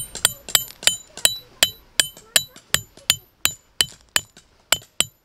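A mallet hammering a metal tent peg into gravel: about three even strikes a second, each with a bright metallic ring, stopping near the end.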